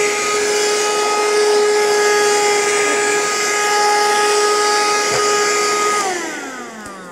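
Vacuum cleaner motor running with a steady whine and rushing air hiss. About six seconds in it is switched off and the whine falls in pitch as the motor spins down.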